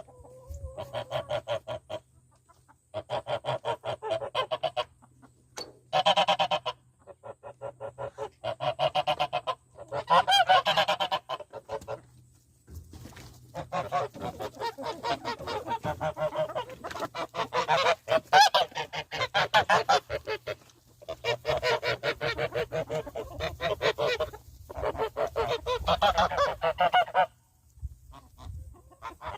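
Domestic geese honking in repeated bouts of rapid calls, each bout lasting a few seconds with short pauses between.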